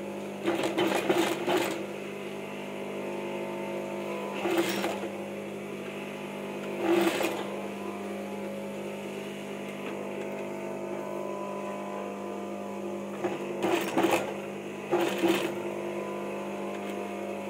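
Electric sewing machine stitching beaded lace trim onto a blouse in short runs, about five, the first near the start and the last a couple of seconds before the end, over a steady hum.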